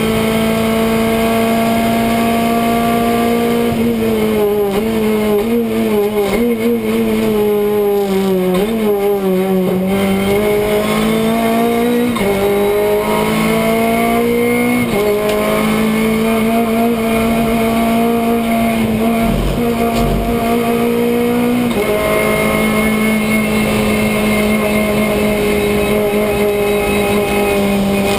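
Renault Clio Cup race car's engine heard from inside the stripped cabin, running hard at steady revs; about four to ten seconds in the pitch dips and climbs back through a corner, and several sudden pitch steps mark gear changes.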